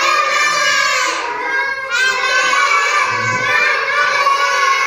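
A class of young children singing together in Arabic, a welcome song greeting the letter Sad.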